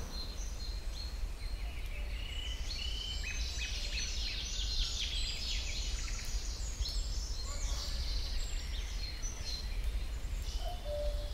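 Forest birdsong: several birds calling and singing in quick, overlapping high chirps and trills, thickest in the middle, over a steady low background hum. A few lower whistled notes come in near the end.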